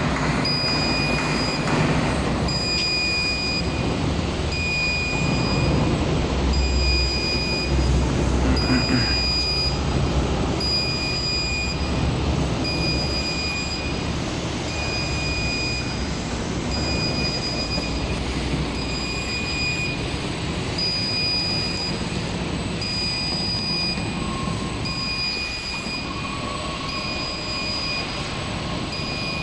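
Linear-guide straight knife grinding machine running: a steady mechanical rumble with short high-pitched tones repeating at an even pace, a little more than once a second.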